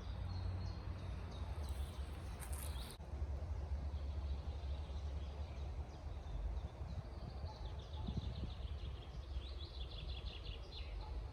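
Small songbirds singing, with quick trills of rapidly repeated high notes, most active in the second half, over a steady low rumble.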